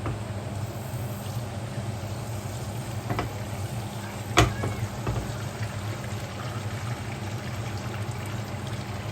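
Chicken schnitzel frying gently with a faint, steady sizzle, because the oil in the pan is not yet hot enough, over a steady low hum. There is a sharp knock about four seconds in and a lighter one about three seconds in.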